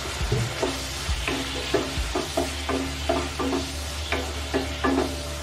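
Boneless chicken pieces and garlic sizzling in oil in a nonstick kadai, with a spatula scraping and tapping against the pan as the chicken is stirred. The strokes come about two or three a second, starting about a second in.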